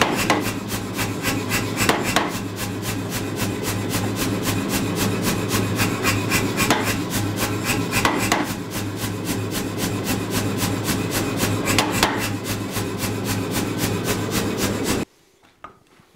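Say-Mak self-contained air power hammer pounding a glowing 4140 steel bar, drawing it out: a rapid, steady run of blows over the machine's constant motor hum. The hammering cuts off suddenly about a second before the end.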